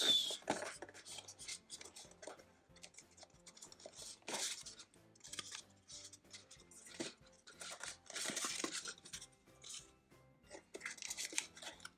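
Google Home Mini retail boxes being handled and opened: scattered small clicks and knocks, with two longer noisy bursts about four and eight and a half seconds in.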